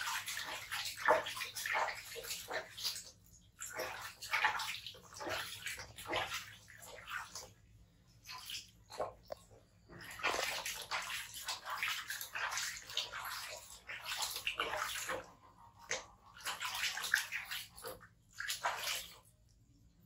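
Water splashing in a plastic basin as a hand scoops and rubs water over baby monkeys during a bath, in irregular bursts with short pauses, stopping shortly before the end.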